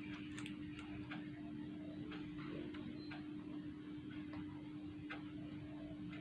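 Scattered light clicks and taps of small laptop parts and tools being handled during reassembly, irregular and spaced about half a second to a second apart, over a steady low hum.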